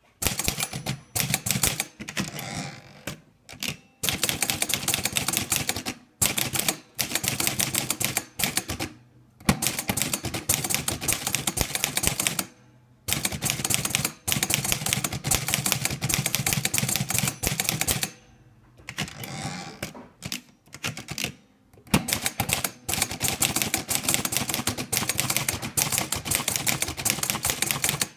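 Olivetti Lettera 32 portable manual typewriter being typed on: fast runs of sharp key strikes, broken every few seconds by short pauses.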